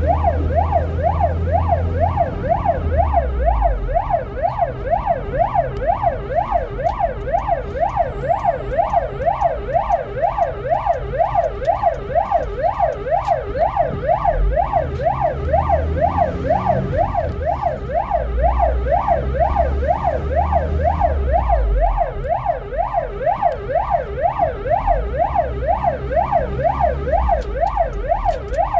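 Ambulance siren in a fast yelp, its pitch sweeping up and down about three times a second without a break, heard from inside the ambulance's cab. The vehicle's engine and road rumble run underneath.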